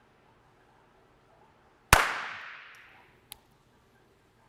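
A single unsuppressed pistol shot just under two seconds in, its echo dying away over about a second, measured at about 148 dB at the shooter's left ear. A small click follows about a second later.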